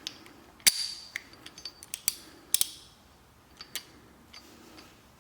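Steel tool parts clinking and clicking as a torque wrench adaptor is fitted onto a click torque wrench: a string of sharp metallic clinks, the loudest with a brief ring, in the first three seconds, then a few fainter ticks.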